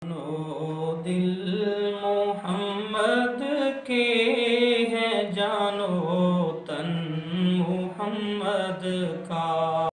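Intro music: wordless voices chanting a gliding melody over a steady low drone.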